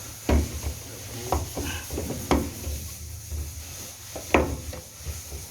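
Knocks and clunks of hard parts being handled, four or five sharp hits about a second apart, as the fuel pump assembly is lined up and set into place.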